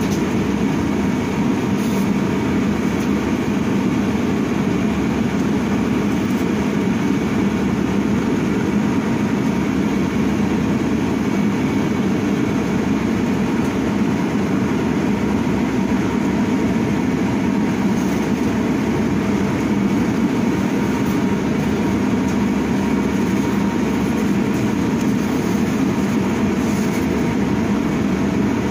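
Steady running hum inside an Ursus CS12E electric city bus, heard in the passenger cabin, with a faint constant whine over it.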